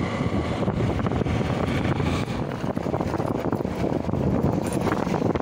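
Motorcycle running steadily while being ridden, with its engine and road noise mixed in a dense, even rush.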